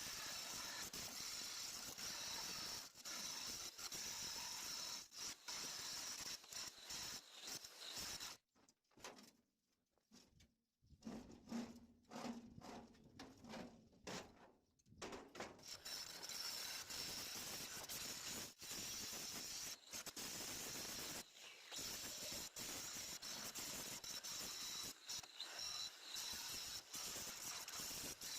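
Electric arc welding: a steady crackling hiss. It stops for several seconds partway through, with only a few short bursts, then resumes.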